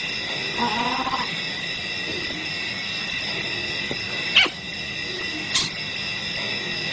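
Wild animal calls over a steady high insect-like drone: a short whimpering call about a second in, then two sharp high squeaks around the middle.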